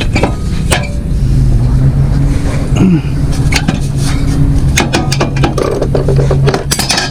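Metal hand tools clinking and knocking against the mower engine's metal parts as it is worked on, a string of short sharp clicks over a steady low hum.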